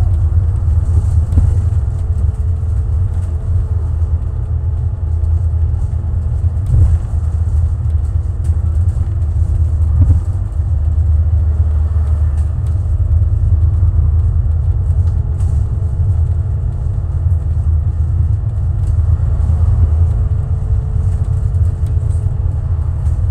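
City bus heard from inside while driving: a steady low engine and road rumble with a faint whine over it, and a couple of small knocks from the body.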